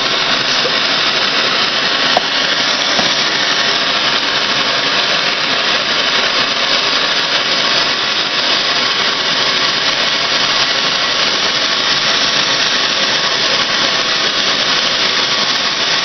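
Handheld gas torch burning with a loud, steady hiss of the flame.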